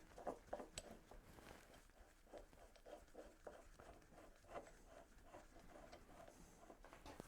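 Faint, irregular small taps and clicks, as of something being handled, over near silence.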